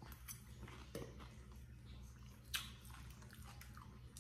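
A person chewing and eating off a fork, with small wet mouth sounds and clicks, the sharpest a short click about two and a half seconds in.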